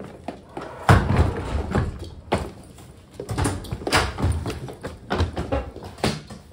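Rolling suitcases being wheeled and handled: a loud thump about a second in, then a run of knocks, rattles and clunks as the luggage is moved about.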